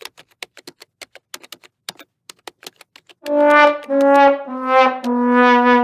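Typewriter-style clicking sound effect, then a comic 'sad trombone' brass sound effect: four notes stepping down in pitch, the last one held.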